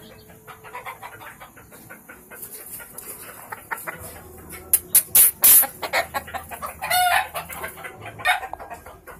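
Caged gamecock roosters clucking, with a run of loud, sharp calls near the middle and a short pitched call a couple of seconds later.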